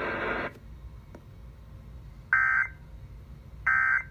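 Emergency Alert System end-of-message code: two short, loud squawks of rapid digital data tones, about a second and a half apart, marking the close of the alert. They follow the steady radio audio, which cuts off about half a second in.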